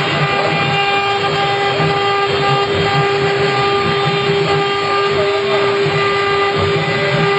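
Woodworking machine running steadily with a constant pitched whine over a dense mechanical noise.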